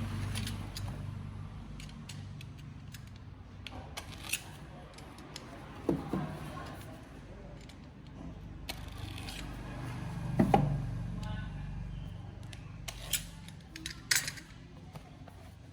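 Scattered sharp clicks and a few short knocks from small parts being handled, the loudest about six, ten and fourteen seconds in, over a low steady hum.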